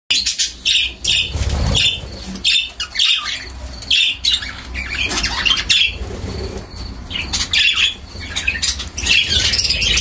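A flock of budgerigars chattering, short chirps and squawks following one another with hardly a break, over a low rumble.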